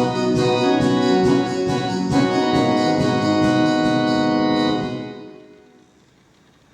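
Organ-toned keyboard music playing held chords over a steady beat, stopping about five seconds in and dying away.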